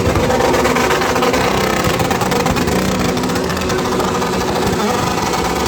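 A motorcycle engine running, loud and fairly steady, its note shifting only slightly.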